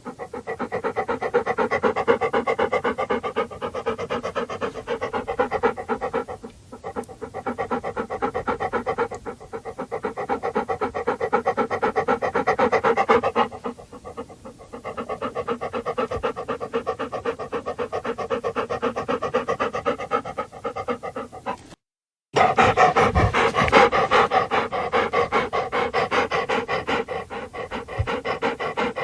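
A dog panting rapidly in a steady, fast rhythm of short breaths. It breaks off abruptly for a moment about three quarters of the way through, then carries on.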